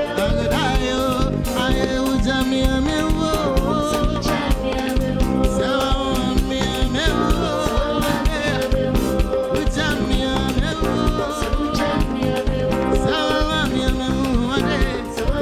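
A live band playing, keyboard, drums and guitar, with a man singing the lead over a steady beat.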